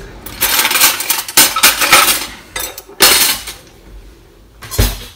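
Cutlery scraping and clinking against a plate in a couple of long stretches, then a single sharp knock near the end.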